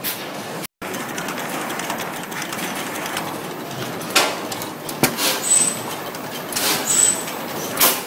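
Small antique stationary gas engine with twin flywheels running, its loud exhaust beats coming at uneven intervals over a steady machinery din. The sound cuts out for an instant near the start.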